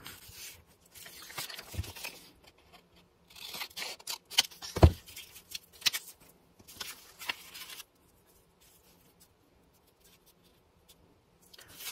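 Sheets of craft paper rustling and sliding against a cutting mat as they are flipped over and pressed flat by hand, with scattered light clicks and one sharp knock about five seconds in.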